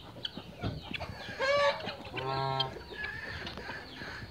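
Belgian d'Uccle bantam chicks peeping, with two louder, lower-pitched chicken calls about a second and a half in and just after two seconds.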